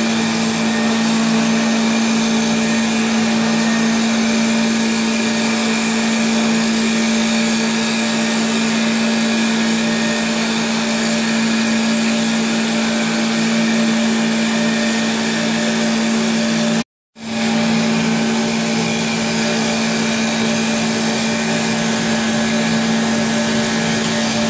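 Two-spindle CNC wood lathe turning two walking sticks at once, its spindle motors running at speed with a steady hum under a dense hiss of knives cutting the spinning wood. The sound breaks off for a split second about two-thirds of the way through, then resumes unchanged.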